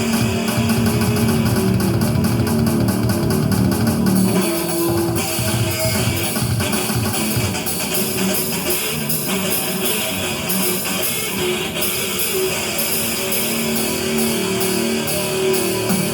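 Music with guitar playing throughout.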